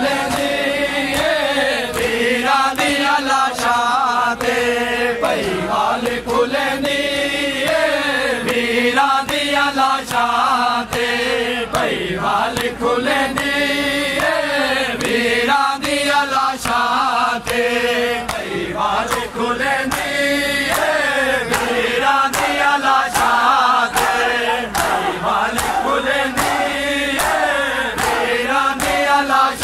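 Group of men chanting a Punjabi noha, a Shia mourning lament, in unison in long sung phrases. Sharp slaps of matam chest-beating keep time about once a second.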